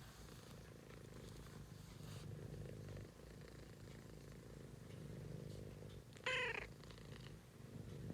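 A cat snoring in its sleep: low, slow breaths that swell and fade about every three seconds. A short high squeak comes about six seconds in.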